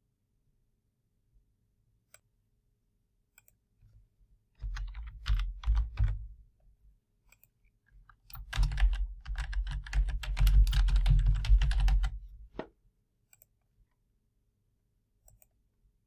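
Typing on a computer keyboard in two runs: a short burst of keystrokes about five seconds in, while a dollar amount is entered, then a longer run from about eight and a half to twelve and a half seconds, while a short phrase is typed, ending in a single click.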